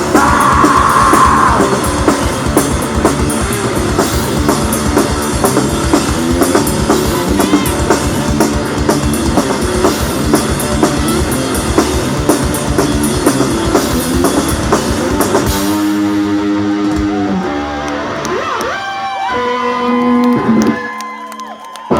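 Live rock band, electric guitar and drum kit, playing loudly through an instrumental outro without vocals. About two-thirds of the way in the drums stop and the guitar rings on with sustained, sliding notes, fading sharply just before the end.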